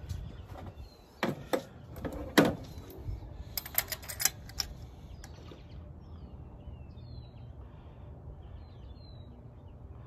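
Sharp clicks and knocks of tools and parts being handled in a car's engine bay during a spark plug change, in the first half. Small birds chirp in short calls near the end.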